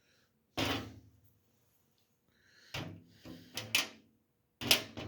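Steel pliers tips knocking and scraping on a hard surface while trying to grip a penny: one sharp knock about half a second in, a cluster of clicks and taps in the middle, and a louder knock near the end.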